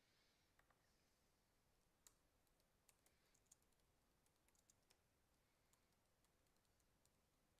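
Near silence with faint, scattered computer keyboard clicks from typing.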